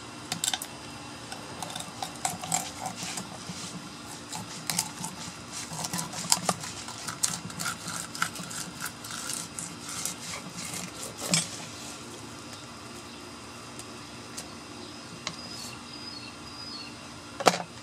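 Fillet knife cutting a scales-on yellowtail snapper on a wooden table: irregular scraping and clicking of the blade through the scales and along the backbone, busiest over the first twelve seconds and sparser after. A sharp knock comes near the end.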